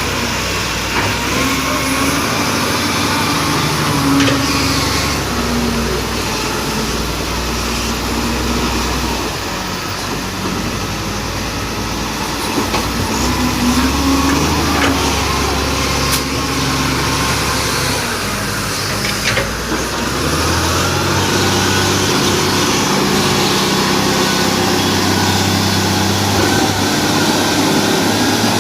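Bulldozer's diesel engine running, its pitch rising and falling as the load changes, with a few faint clanks.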